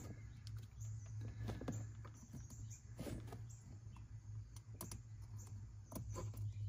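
Wire pin terminals and a plastic OBD2 connector being handled as a pin is pushed into the back of the plug: a scatter of small clicks and rattles over a steady low hum.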